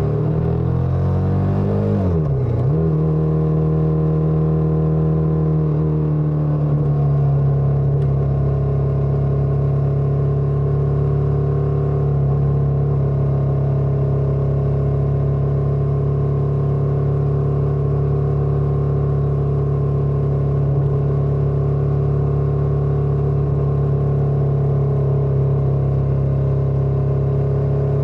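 Motorcycle engine on the move: its pitch falls over the first two seconds or so as it slows, then it runs at a steady speed.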